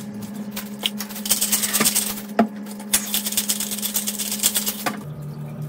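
A hand-twisted seasoning grinder cranked hard over a tray of sweet potato wedges: a fast run of rattling, ratcheting clicks for about four seconds, over a steady low hum that stops near the end.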